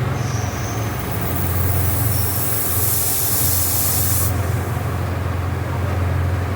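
CNC machine tool running with a steady low hum. A loud hiss, like a spray, joins about a second in and cuts off suddenly about three seconds later.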